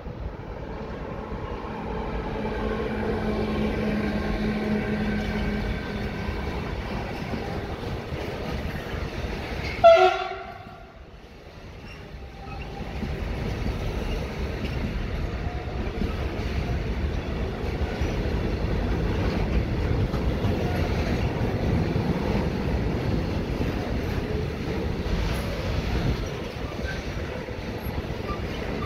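A Siemens Vectron (EU46) electric locomotive hauling a container train draws near, and gives one short, loud horn blast about ten seconds in. The loaded container wagons then roll past with a steady rumble and clatter of wheels on rail.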